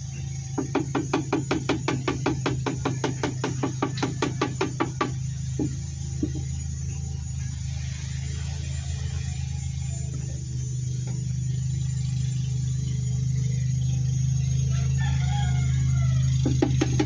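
A steady low machine hum with a fast, even knocking of about six or seven beats a second over it. The knocking lasts for the first few seconds, stops, and starts again near the end.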